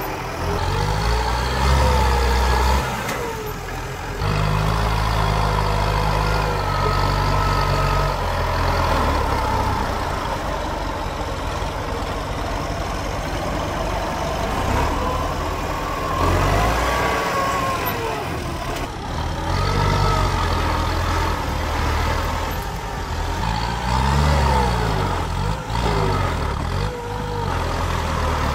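Kubota M8540 tractor's diesel engine working under load as its front blade pushes soil, the engine note rising and falling repeatedly with the revs.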